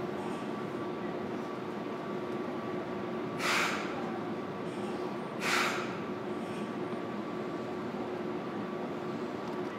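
Inside a JR Kyushu 305 series electric train car, a steady hum of onboard equipment with two faint steady tones. Two short hisses of air, about two seconds apart, about halfway through.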